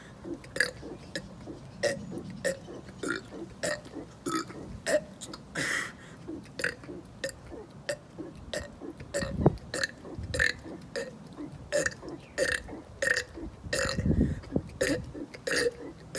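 A man burping in quick succession, short burps at about two a second, forced out one after another in a bid for as many burps as possible in a minute. Two louder, deeper burps stand out, one about halfway through and one near the end.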